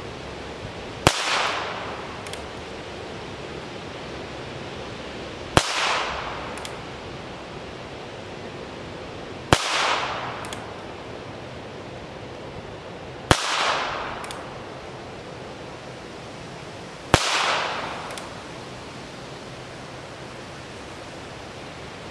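Five .22 Long Rifle shots from a stainless Ruger New Model Single Six single-action revolver, about four seconds apart. Each is a sharp crack followed by a short echo off the surrounding woods, with a faint click about a second after each shot.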